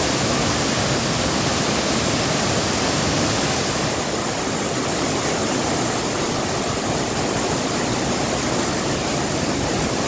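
Tall waterfall pouring onto boulders in its plunge pool: a steady, even rush of falling water.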